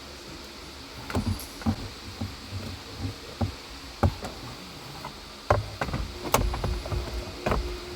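Irregular knocks and clicks of parts and tools being handled while the replacement AC blower motor is fitted. They come in clusters and grow busier in the second half, over a low rumble.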